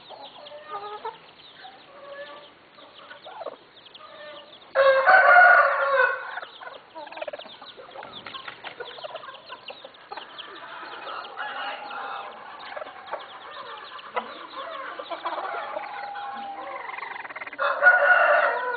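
Asil game-fowl stags crowing: one loud crow about five seconds in and another starting near the end, with softer clucks and low calls between.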